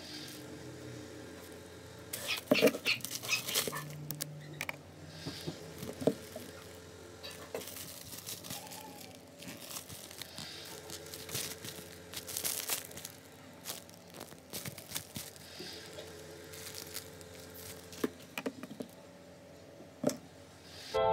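Plastic packaging crinkling and rustling in short bursts while glass bottles are unwrapped and handled, with a few light knocks.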